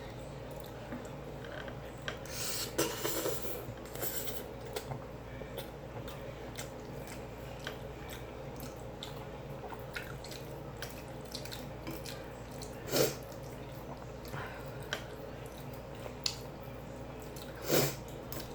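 Close-up eating sounds: wet chewing and mouth smacks with scattered small clicks. A few louder ones come about three seconds in, about thirteen seconds in and near the end, over a steady low hum.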